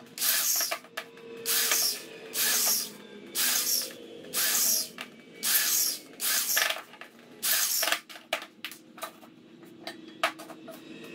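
Corded electric drill run in about eight short bursts, roughly one a second, into a wooden board. Near the end come a few light knocks and clicks of wood being handled.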